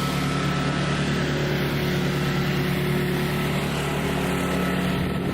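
A small engine running steadily at an even pitch, a constant drone.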